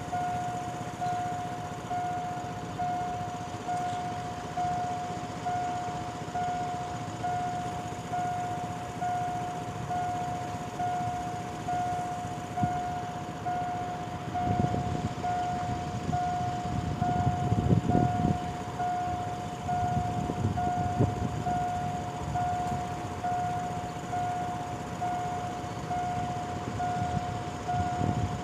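Level-crossing warning bell ringing over and over in even, fading strokes of a single tone while the barriers are down. A low rumble rises and falls in the middle, from a train passing over the crossing.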